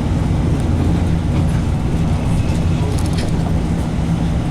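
Engine and road noise of a moving bus heard from inside its cabin: a steady low drone.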